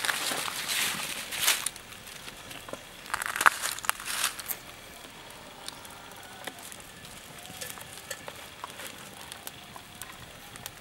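Food frying in a small pan over an open wood fire, crackling and sizzling. It comes in two louder bursts in the first half, then settles to a faint crackle with scattered pops.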